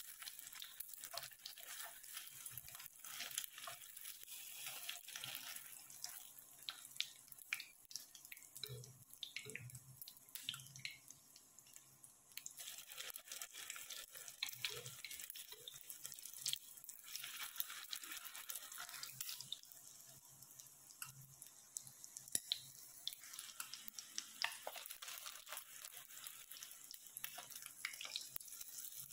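Banana rolls shallow-frying in hot oil in a pan: a steady sizzle full of small crackles and pops, with a few soft knocks about nine to eleven seconds in.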